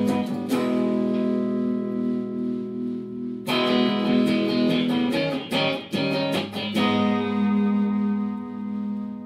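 Electric guitar strummed, with chords left to ring for a few seconds between strokes and a flurry of quick strums in the middle.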